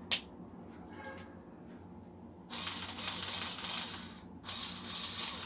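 A click, then a Swiss Military cordless handy drill runs twice, about two seconds each, with a short pause between, its small motor and gearbox whirring.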